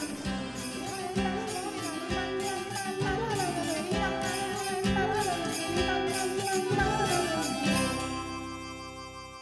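Cartoon background music with a steady beat and a melody, ending on a held chord that fades away near the end.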